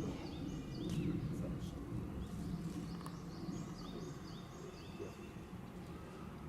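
Background murmur of many people's voices with a small bird chirping repeatedly over it in short notes.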